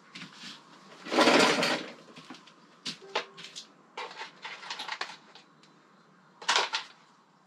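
Small plastic parts being handled on a motorcycle handlebar: a rustling scrape about a second in, scattered small clicks and taps as connector clips are pressed into place, and another short scrape near the end.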